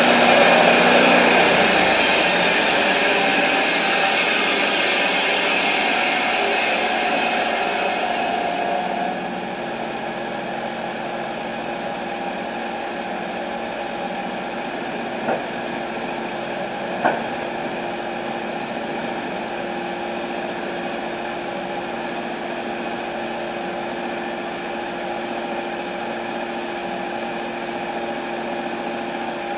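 TimberKing 1220 band sawmill running, loud at first and then settling about nine seconds in to a steady, quieter run with a held hum. Two sharp knocks a little past the middle.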